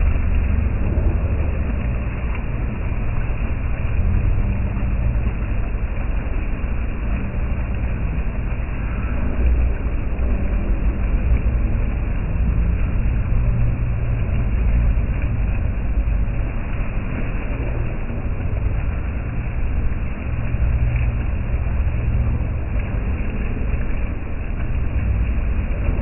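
Bell-shaped fountain jet, its dome of water falling and splashing steadily into the pond, heard as an even, deep rushing wash.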